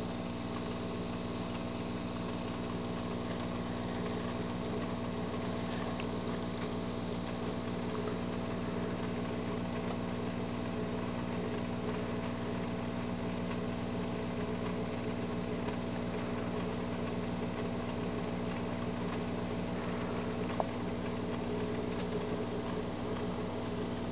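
A steady low mechanical hum with a faint hiss under it, and one brief click near the end.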